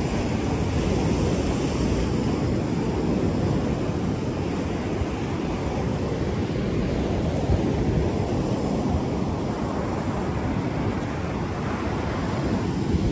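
Ocean surf washing on the beach as a steady rush, with wind rumbling on the microphone.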